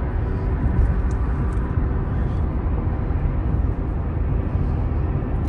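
Steady road noise of a car driving at highway speed, heard from inside the cabin: tyre and engine noise with a faint steady hum.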